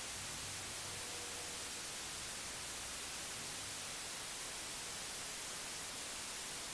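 Analog TV static: a steady, even hiss, brightest in the high end.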